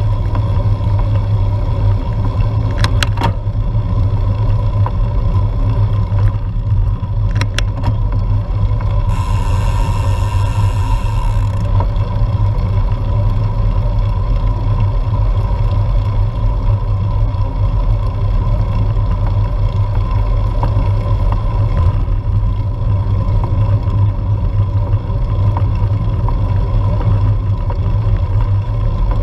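Steady low rumble of wind buffeting and road noise on a GoPro mounted on a road bike riding uphill, with a faint steady tone under it. A few sharp clicks come about three and seven seconds in, and a brief hiss about ten seconds in.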